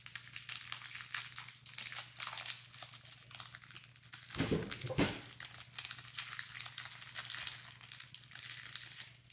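Foil booster-pack wrapper crinkling as it is handled and opened: a run of small crackles, with a louder rustle about four and a half to five seconds in. A low steady hum sits underneath.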